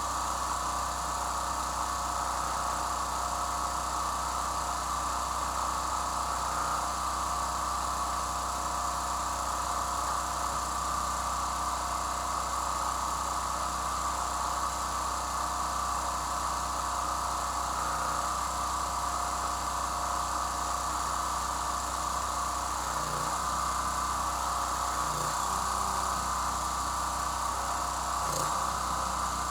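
Small portable generator's engine running at a steady speed, with a steady high whine over it.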